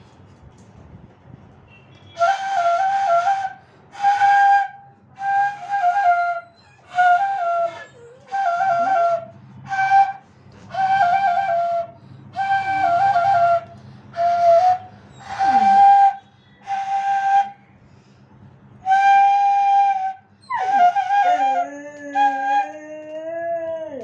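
Bansuri (bamboo transverse flute) played in short repeated phrases of a few notes each, with brief pauses between. Near the end a dog joins in with a long, wavering howl while the flute holds a note.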